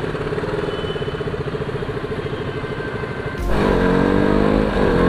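KTM RC 200's single-cylinder engine running at steady low revs, then, about three and a half seconds in, louder and rising in pitch twice as the motorcycle accelerates, with wind rumble underneath.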